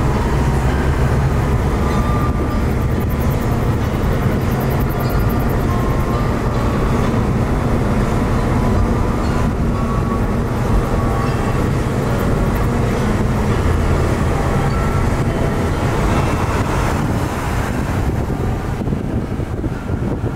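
Steady low rumble of a car driving on a highway, heard from inside the cabin: engine and tyre noise.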